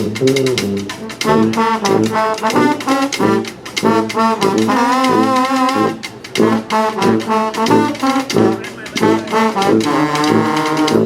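Street brass band playing: horns come in at the start over a steady drum beat, with a held, wavering high note about halfway through.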